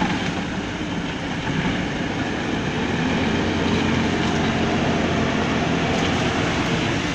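A steady engine rumble under a broad, even hiss, with no strikes or breaks.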